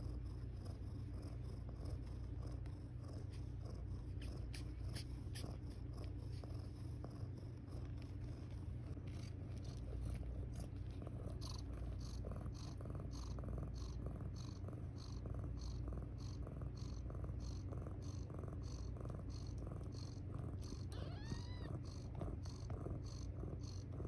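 A mother cat purring steadily while her kittens nurse. A soft regular ticking, about two a second, joins in from about nine seconds, and a brief high squeak comes near the end.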